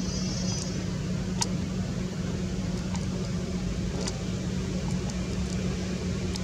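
A steady low motor drone, with a short high chirp near the start and a few brief high ticks scattered through it.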